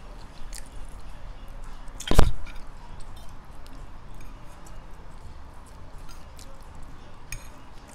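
People chewing food, with small clicks of a fork against a plate. There is one loud thump about two seconds in.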